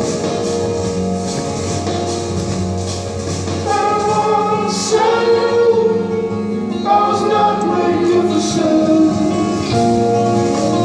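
Song with a singing voice over sustained instrumental chords, with new vocal phrases entering about four seconds in and again near seven and ten seconds.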